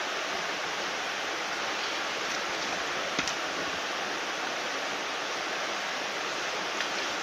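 Shallow, rocky mountain stream running over a riffle: a steady rushing of water, with one faint click about three seconds in.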